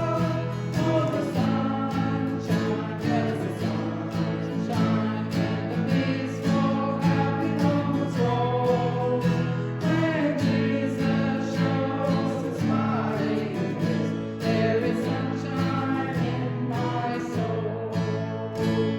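A hymn sung with strummed acoustic guitar accompaniment, ending on a final strum that rings away.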